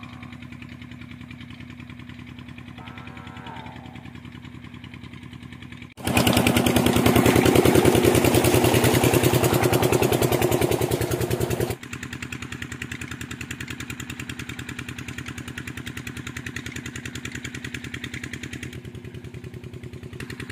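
An irrigation pump engine runs steadily with an even throb. For about six seconds in the middle it is much louder, mixed with the rush of water gushing from the pump's outlet pipe into an irrigation channel.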